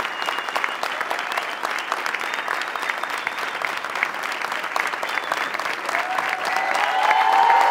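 Large crowd applauding, dense steady clapping. Near the end, crowd voices rise and swell over the clapping.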